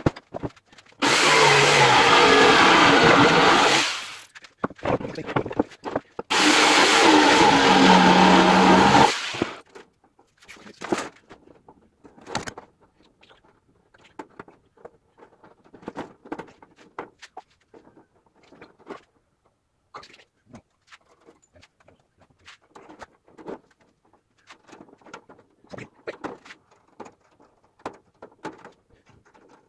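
A power tool runs twice, about three seconds each, in the first third. After that come light, scattered metallic clicks and rattles of a steel coil-spring furniture unit being handled.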